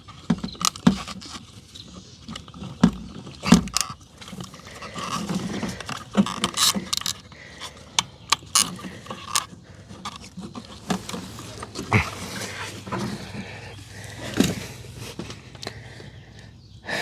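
Hands and tools working at a car's fuel pump assembly inside the tank opening: scattered clicks, knocks and scrapes of plastic and metal parts, with a few sharper knocks along the way.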